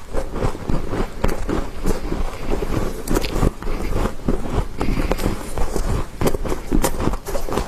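Close-miked crunching of soft freezer frost, chewed and scooped with a metal spoon: a dense, steady run of crisp crackles.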